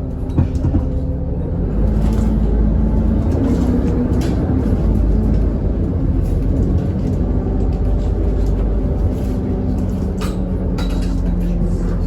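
Alexander Dennis Enviro400 double-decker bus (E40D chassis, ZF Ecomat six-speed automatic) heard on board while moving: a steady diesel engine drone whose pitch rises and falls as it pulls through the gears, with short clicks and rattles from the interior.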